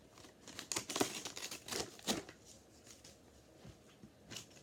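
Toy packaging being handled and torn open, a run of crinkling and tearing noises over the first two seconds, then a few lighter clicks and rustles.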